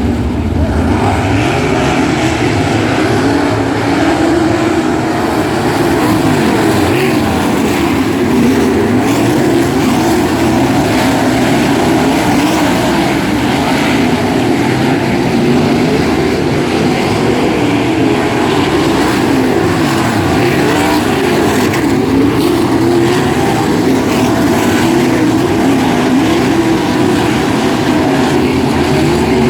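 A field of 360 sprint cars' V8 engines running on a dirt oval, a continuous loud blend of engine notes rising and falling in pitch as the cars go around.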